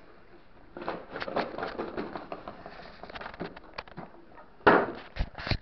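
Cardboard packaging rustling and scraping as a white outer box is slid off a boxed toy, with many small crackles. Near the end comes a loud short scrape, then two sharp knocks.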